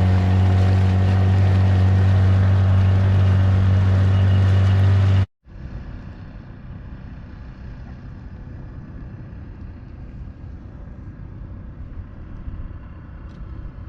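Small boat's outboard motor running loudly at a steady speed, a deep even drone. It cuts off abruptly about five seconds in, giving way to a much quieter steady rumble of wind and water.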